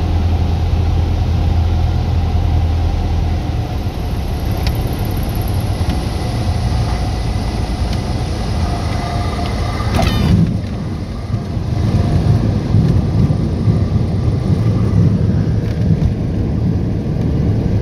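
Cessna 172 engine and propeller heard from inside the cabin through the flare and landing: a steady low engine hum eases a few seconds in as power comes off. About ten seconds in there is a brief sharp sound, and after it a rougher, uneven rumble continues as the wheels roll along the runway.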